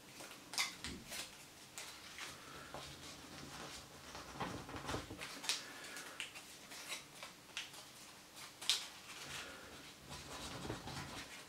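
A 10-euro banknote being folded and creased between the fingers: faint, irregular paper crinkling and rustling with short crisp crackles.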